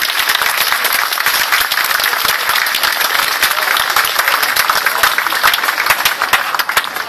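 A crowd applauding with steady, dense clapping.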